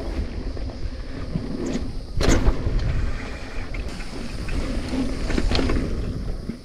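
Mountain bike rolling along a dirt trail: wind buffeting the microphone and tyre rumble, with light rattles and a single sharp thud a little over two seconds in.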